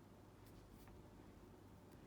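Near silence: room tone with a low hum and a few faint, brief clicks.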